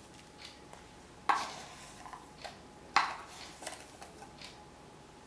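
Two teaspoonfuls of salt being scooped and tipped onto bread dough in a glass bowl: two brief scraping sounds about a second and a half apart, with a few faint taps between.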